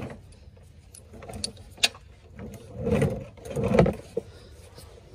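Metal hand tools being handled: a few sharp clicks, then two louder clattering bumps, as sockets are sorted for removing the drain plug.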